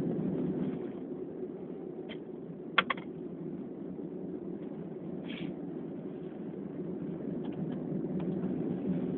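A steady low background hum with a few faint clicks about two and three seconds in, and a brief soft breathy noise a little after five seconds.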